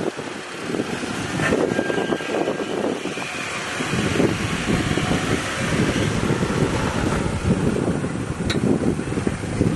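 Lifted Jeep's engine running at low revs as it crawls slowly over boulders, with rumbling that rises and falls, and wind buffeting the microphone.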